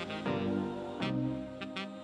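Background music: sustained chords that change about once a second, over a light beat.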